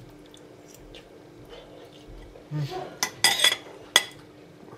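Cutlery clinking and scraping against a plate several times, the loudest single clink near the end.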